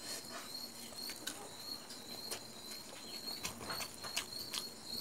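Close-up eating sounds: scattered soft clicks of chewing and of fingers working rice in a steel bowl, over the steady high chirping of crickets.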